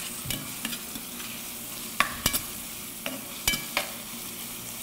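Chopped onions sizzling in oil in a stainless steel pan, being cooked down to caramelize. A metal spatula stirs them, with several sharp clinks and scrapes against the pan over a steady frying hiss.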